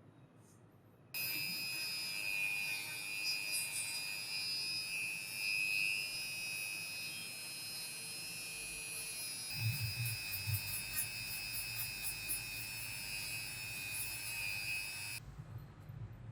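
A small handheld electric tool's motor switches on about a second in and runs with a steady high whine. From a little past halfway, low knocks join as it works the material, and it switches off near the end.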